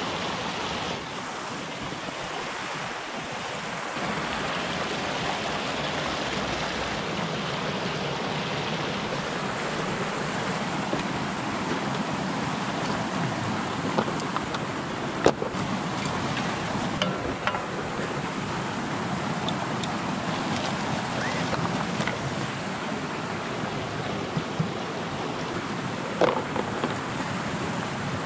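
Mountain stream rushing steadily over rocks and small cascades. A few sharp knocks and clicks of prospecting gear being set down on the rocky bank, the loudest about halfway through and another near the end.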